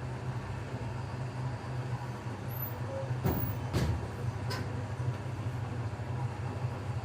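A steady low hum, with a few sharp clicks between about three and four and a half seconds in.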